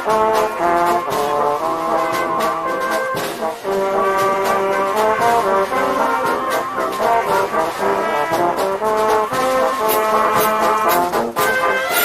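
Brass band playing a dobrado, a Brazilian military-style march, with sharp percussion strokes throughout.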